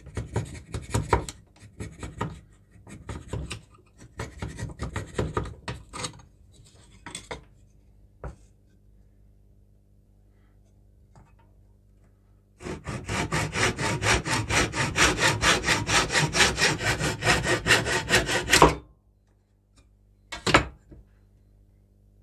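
Hand saw cutting across a small wooden block, with quick even strokes for about six seconds. It is preceded by a few seconds of short, irregular scraping strokes on the wood, and a brief single scrape comes near the end.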